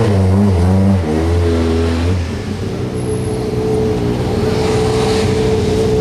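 Volkswagen hillclimb race car's engine running at low revs, blipped up and down a few times in the first two seconds, then held steady.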